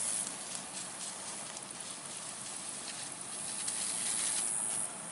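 Handheld garden sprayer wand hissing as it sprays a fine mist of liquid over the leaves of potted greens, the spray cutting off suddenly just before the end.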